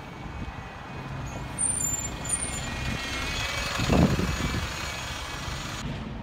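A single-deck bus drives close past, its engine running steadily and growing louder as the rear passes, with a brief louder surge about four seconds in.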